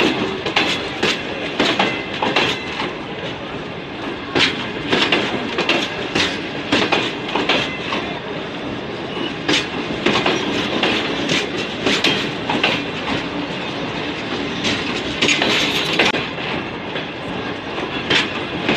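Karakoram Express passenger coaches rolling past as the train pulls out, wheels clacking over the rail joints at irregular intervals over a steady running noise from the wheels and underframes.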